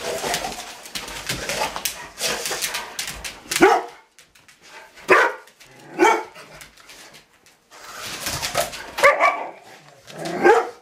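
A Rottweiler barks several times, in short single barks about a second apart. Before that, for the first few seconds, there is a rattling, scuffling noise.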